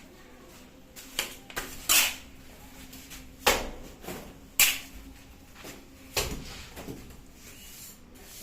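Plastering work: a mason's trowel scraping and slapping cement mortar in a handful of short, sharp strokes, the loudest about two, three and a half and four and a half seconds in.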